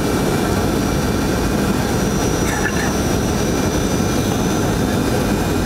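Steady roar of a jetliner's engines and rushing air, heard inside the passenger cabin on the approach to landing, with faint steady high-pitched whines over it.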